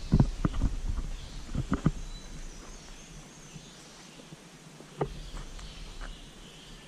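Irregular low thumps and knocks, most of them in the first two seconds and one more about five seconds in, such as footsteps on a trail or bumps to a handheld camera. Faint birdsong sounds behind them.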